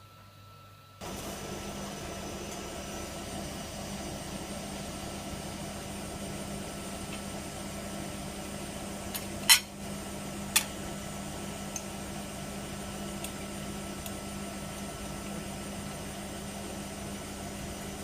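Hoover Nextra HNWL7146 washer-dryer starts up suddenly about a second in and then runs steadily with a constant hum. Two sharp clicks come about halfway through, the first the loudest.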